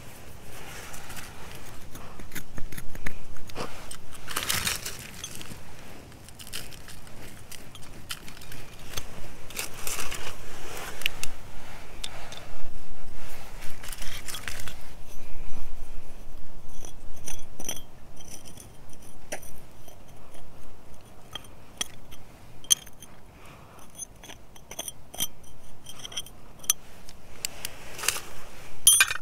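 Fingers scraping and brushing loose gravelly soil, with rough sweeps through grit in the first half. Later comes a run of small sharp ticks and clinks of pebbles and stone fragments knocking together.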